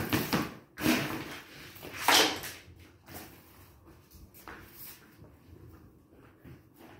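Hollow plastic toy bowling pins knocked over, clattering and rolling on a concrete floor: a run of sharp knocks, loudest about two seconds in, growing lighter toward the end.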